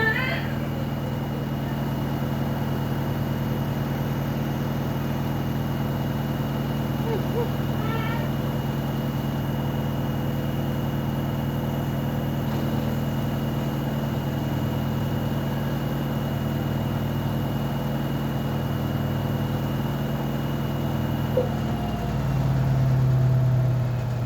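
Washing machine running with a steady motor hum. About two seconds before the end, the hum swells louder and deeper.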